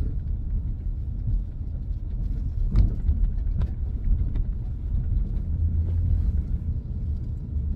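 Steady low rumble of a car being driven, heard inside the cabin, with a couple of faint clicks about three seconds in.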